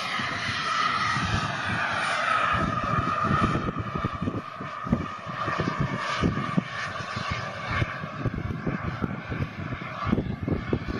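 The small gas-turbine engine of a radio-controlled model jet flying past, a steady high whine over a rushing roar that fades after about four seconds as it draws away. Wind buffets the microphone with low gusty rumbles, more noticeable once the jet has faded.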